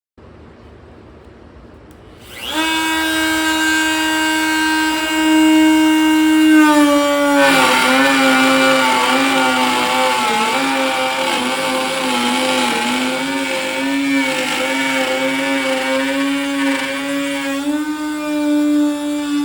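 Corded electric router starting up about two seconds in with a steady high whine. Its pitch sags and wavers for about ten seconds as it takes load, then rises back near the end.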